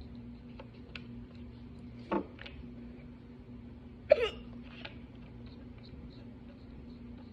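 A young woman hiccupping twice, about two seconds apart. The second hiccup is louder and sharper, with a quick drop in pitch.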